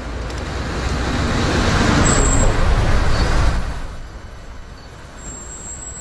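A road vehicle passing: a rush of noise that swells, peaks after about two seconds and dies away about four seconds in, over a steady low rumble.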